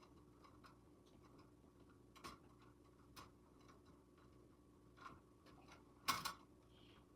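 Near silence with a faint steady hum and scattered, irregular small clicks and taps, the loudest couple of clicks about six seconds in.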